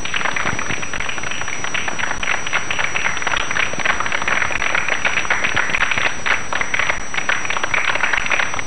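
Audience applauding steadily, a dense mass of hand claps that starts as the music stops.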